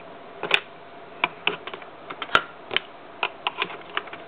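Lego bricks and parts clicking and rattling as they are handled and adjusted: a scatter of irregular sharp plastic clicks, the sharpest about half a second in and just past the middle.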